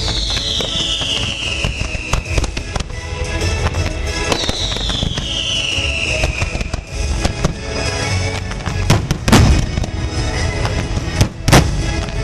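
Fireworks bursting overhead with dense crackling and sharp bangs, the loudest about nine and eleven and a half seconds in, over show music from loudspeakers. Two long falling whistles sound in the first seven seconds.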